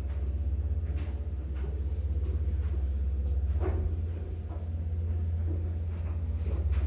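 A steady low rumble with a few faint clicks and knocks.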